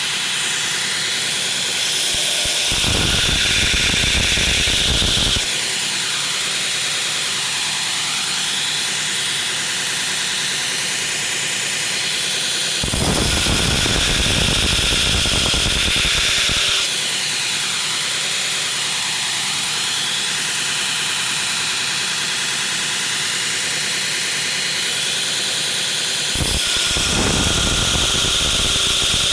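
Belt grinder running steadily on a coarse 36 grit belt, with three spells of grinding, about 3 s in, about 13 s in and near the end, each a few seconds long, as a steel knife blade is pressed to the belt to grind its bevel.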